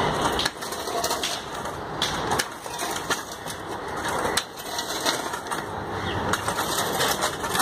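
Pickaxe striking hard, dry soil, with a blow every second or two followed by the crunch of loosened dirt and grit.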